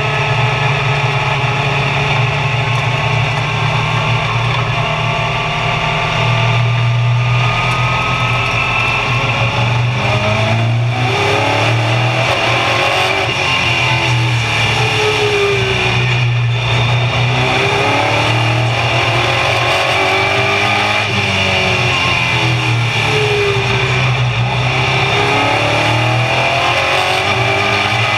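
Race car engine heard from inside the cockpit at racing speed, a loud continuous drone. From about a third of the way in, the pitch repeatedly rises and falls as the car lifts off and accelerates again around the oval.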